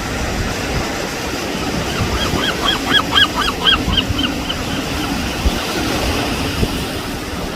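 A gull calling a quick series of about a dozen short, arched notes, four or five a second, starting about two seconds in, over the steady wash of ocean surf.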